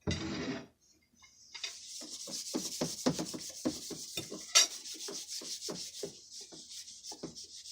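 Close-up chewing and crunching of food, with a steady rhythm of about three chews a second and one sharp click about halfway through.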